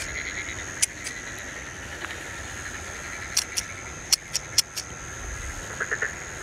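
A steady, high-pitched chorus of night insects, with a single sharp click about a second in and a quick run of about six sharp clicks between three and five seconds.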